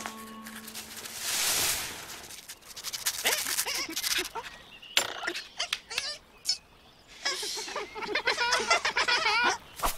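Cartoon beavers chattering in quick, wavering squeaks, mixed with clicks and knocks. A whoosh comes about a second in.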